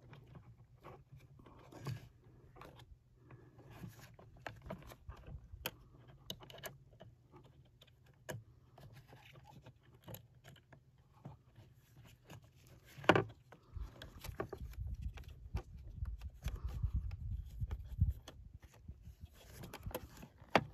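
Scattered small clicks, taps and scrapes of hard plastic being handled as the foot pedals of a Thetford Aqua Magic IV RV toilet are worked and their thin flush-cable wires are guided into the pedal slots, with one sharper click about two-thirds of the way through. A low rumbling noise runs under the second half.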